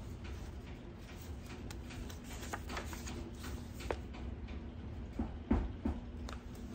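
A hardcover picture book being handled and a page turned: scattered light rustles and clicks, then a soft thump about five and a half seconds in, over a steady low hum.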